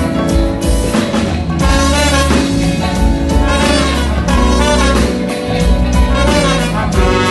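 Live band playing with a horn section over bass and a steady beat.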